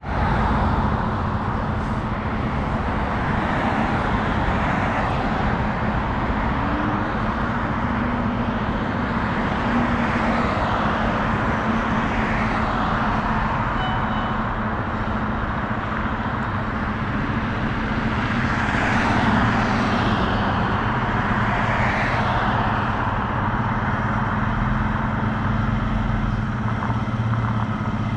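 Road traffic passing on a street: several vehicles go by one after another, each swelling and fading, over a steady low engine hum.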